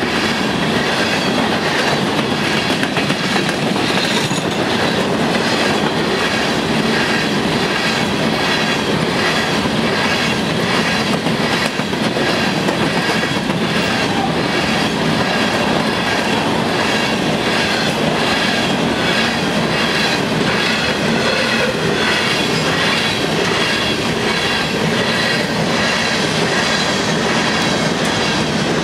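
Empty coal train's hopper cars rolling past: steel wheels clicking rhythmically over the rail joints in a loud, steady clatter, with a steady high ringing above it.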